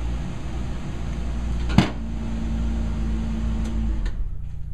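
Air conditioning in a Ram ProMaster van blowing: a steady rushing hum with a low rumble beneath. A sharp click comes a little under two seconds in, and a low steady tone sounds for a couple of seconds after it. Near the end the rushing thins out.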